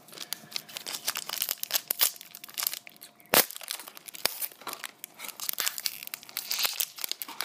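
Hockey card pack wrapper crinkling and tearing as it is opened by hand, a steady run of crackles with one sharp snap a little over three seconds in.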